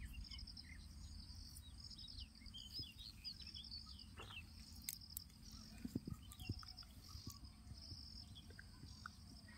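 Faint background of insects chirping in a steady pulsing rhythm, with scattered bird chirps and a few soft clicks.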